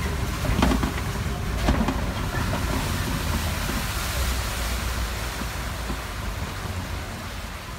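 Open-sided safari ride truck driving, a steady low engine and road rumble under an even hiss, with a couple of short knocks in the first two seconds.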